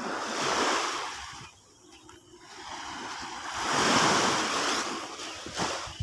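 Small waves washing up onto a sandy beach, two swells of hiss, the second, about four seconds in, the louder.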